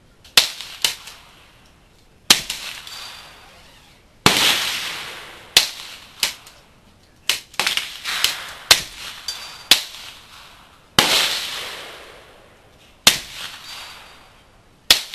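Rifle fire from an AR-15 in .300 Blackout shooting subsonic rounds: about a dozen sharp reports at uneven intervals, a few trailing a long fading echo. Mixed in are the hits of bullets on a hanging steel target.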